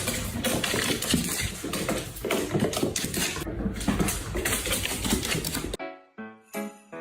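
Rapid, dense clattering with music underneath, cutting off suddenly near the end; a different music track with clear, bell-like notes begins.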